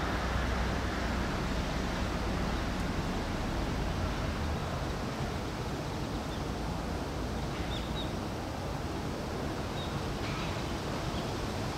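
Steady outdoor ambience with a low rumble of distant traffic that eases after about four seconds, and a few faint, short, high bird chirps in the second half.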